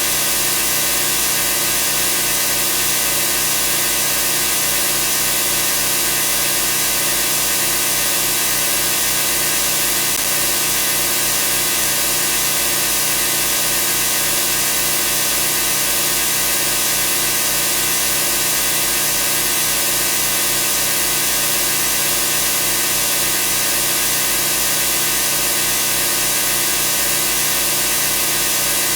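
Homemade synthesized machine-room sound effect: the steady hum of rotating machinery such as motors, with a regular wow-wow droning throb over a dense high hiss.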